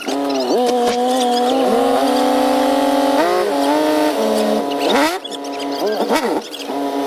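Music: a lead melody of held notes and sliding pitch glides, with no machinery heard.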